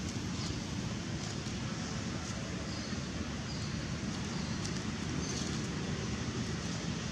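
Steady low rumbling background noise with a few faint, short high chirps scattered through it.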